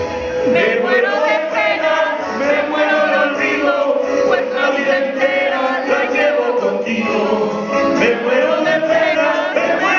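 Two male singers singing a vallenato song into handheld microphones over music, their voices amplified through the hall's sound system.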